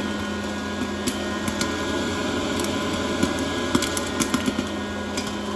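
Popcorn popping: irregular sharp pops, several close together in the second half, over a steady electric appliance hum.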